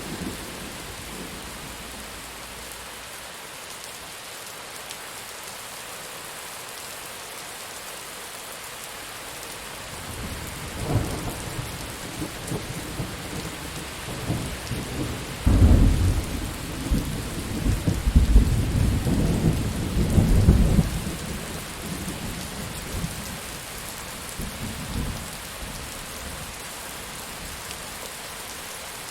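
Steady rain falling, with a long roll of thunder. The thunder builds about a third of the way in, peaks with several heavy low rumbles around the middle, and dies away well before the end.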